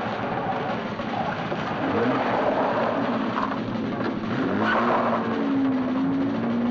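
A car engine running, its pitch rising and falling in the second half.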